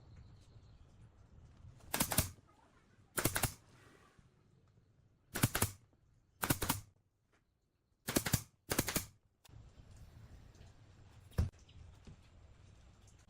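A series of six short, sharp bursts spaced one to two seconds apart, then a single sharp click, from workshop tool work.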